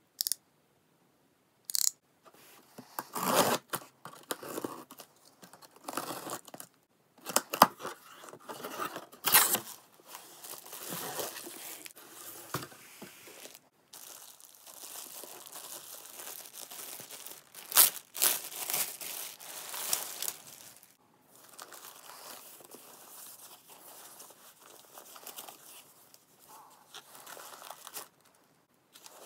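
A parcel being unpacked by hand: a box cutter slits the packing tape on a cardboard box, then a plastic bag and foam wrapping are torn and crinkled open. The sound comes in irregular bursts of ripping and rustling, with a few short sharp tears standing out.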